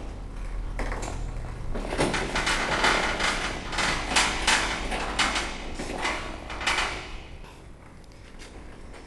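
Metal clanking and rattling: a quick series of knocks and clatters that comes thickest between about two and seven seconds in, then dies down.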